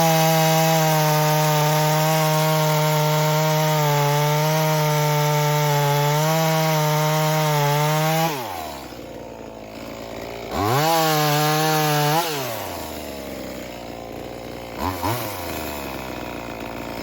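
Small two-stroke V Modest 2511 chainsaw held at full throttle for about eight seconds while cutting through solid oak, then dropping back to idle. It is revved hard again for about two seconds, blipped once briefly, and left idling.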